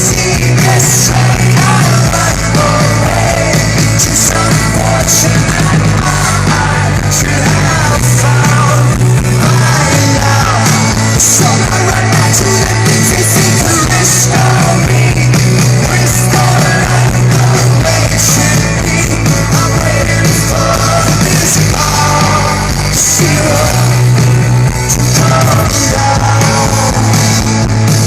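Amplified rock band playing live, with a lead singer's voice over sustained bass notes, guitars and drums with frequent cymbal crashes.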